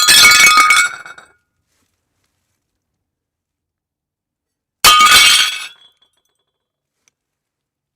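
Plates smashing: a crash of breaking crockery with clinking shards, then a second crash about five seconds in. Each dies away within about a second.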